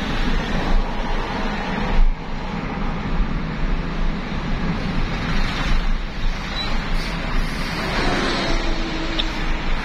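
Steady road and engine noise inside the cabin of a moving car, with a brief knock about two seconds in.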